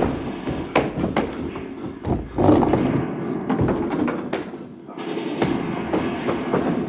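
Battle sound effects: a continuous rumbling din with many sharp cracks like gunfire and explosions. The din thins out briefly about five seconds in, then resumes.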